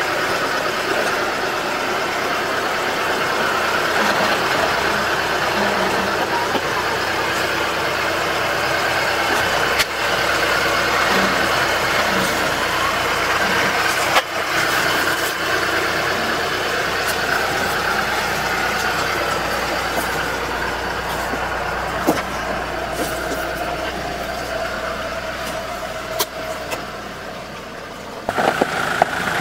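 Jeep Wrangler engine running steadily at low revs while crawling over rocks, with a few sharp knocks of tyres and stones against rock.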